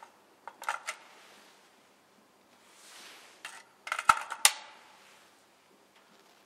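Sharp mechanical clicks and clacks of an airsoft rifle being handled: a short group about a second in and a louder, quicker group around four seconds in, each preceded by a soft whoosh.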